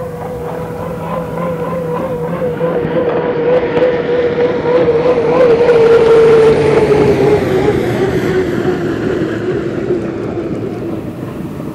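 Turbine-powered unlimited hydroplane running at speed past the microphone: a steady whine grows louder to a peak about halfway through, then drops in pitch and fades as the boat goes by.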